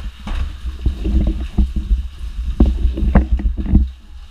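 Storm wind buffeting the microphone in a low rumble, with irregular thumps and knocks that grow stronger from about a second in and ease off near the end.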